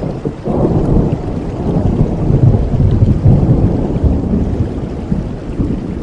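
Rolling thunder over falling rain: a deep rumble swells from about half a second in, is loudest in the middle, and eases off near the end, over the steady hiss of the rain.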